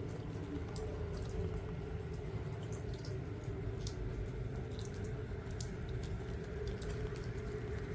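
Rain dripping, with scattered single drops ticking sharply over a steady low rumble and hum.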